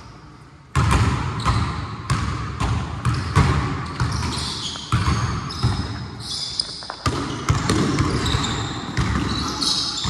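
A basketball being dribbled, bouncing about twice a second after a brief lull at the start, with sneakers squeaking on the court in short bursts.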